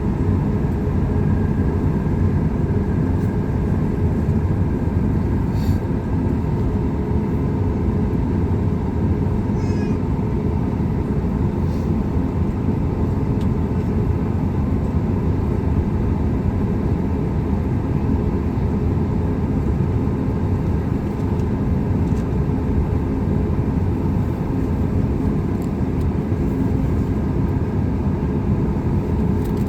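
Boeing 737 MAX 8's CFM LEAP-1B turbofan engines running at idle after start-up, heard inside the cabin as a steady low rumble with a faint whine.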